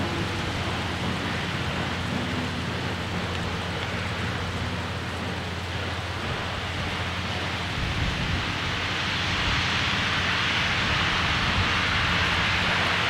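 Western Maryland 1309, a 2-6-6-2 Mallet steam locomotive, approaching under power: a steady rush of exhaust and steam. From about two-thirds of the way in the hiss grows louder as its open cylinder cocks blow steam out to the sides.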